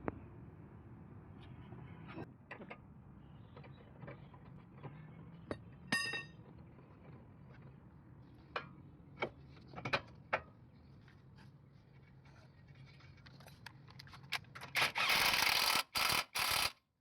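Metal tools or parts being handled: scattered clicks and knocks over a low steady hum, with one ringing metallic clink about six seconds in. A loud rushing noise comes in short broken spells for about two seconds near the end.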